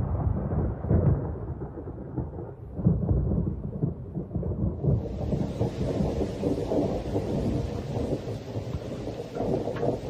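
Thunder rumbling in a rainstorm, with a few loud swells in the first seconds. The hiss of heavy rain comes in suddenly about halfway through.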